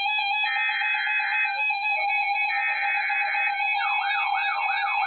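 Weather-radio emergency alert tones: buzzy data bursts of about a second each, separated by one-second gaps, over steady held tones. From about four seconds in, a repeating up-and-down sweeping warble joins them.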